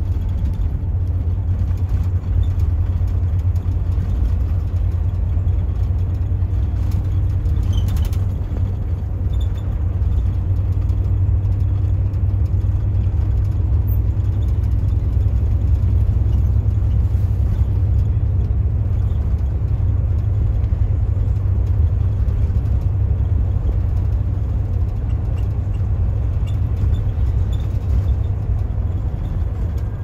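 Steady low rumble of a moving coach heard from inside the cabin, with engine and road noise running evenly.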